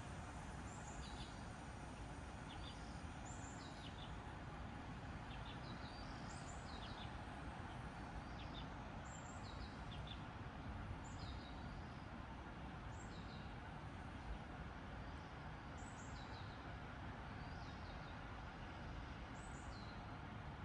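Small birds chirping, short high calls one or two a second, over a steady background hum of outdoor noise.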